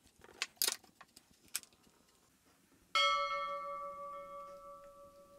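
A few faint creaks and clicks as load builds on a screw in MDF, then about three seconds in a sudden metallic clang that rings on like a bell and slowly fades: the screw tearing out of the MDF face and the metal parts of the pull-out test rig ringing as the load lets go.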